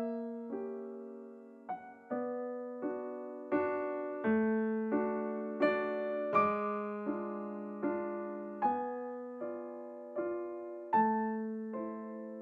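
Background music: a slow piano melody, a note or chord struck about every three-quarters of a second and left to ring out.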